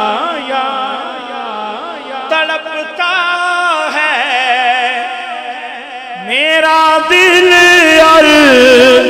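Male voice singing an Urdu naat in long, drawn-out, wavering notes with no clear words. About six seconds in a voice swoops upward and the singing gets louder.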